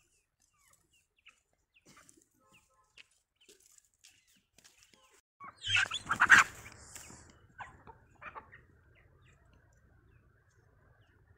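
Chickens clucking, with faint scattered calls at first and a loud burst of squawking clucks about six seconds in, then a couple of weaker clucks.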